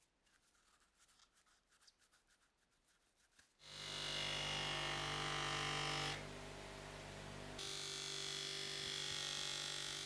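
Faint cloth rubbing on a metal lighter case. About three and a half seconds in, a motor-driven polishing wheel comes in loud and steady, with a hum under a hissing grind as the lighter case is held against it. The grind eases for about a second and a half in the middle, then comes back until near the end.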